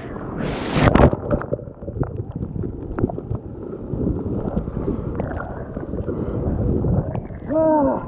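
Surf breaking over a sit-on-top kayak as it is paddled out through the breakers: a wave crashes over the bow about a second in, then water rushes and sloshes across the deck with paddle splashes and wind on the microphone. A short vocal grunt near the end.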